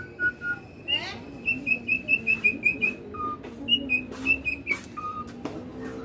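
Caged songbird whistling: clear, pure notes, with a fast run of short high notes about five a second in the middle and single lower whistles between phrases.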